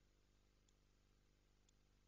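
Near silence: a faint steady hum, with a tiny tick about once a second.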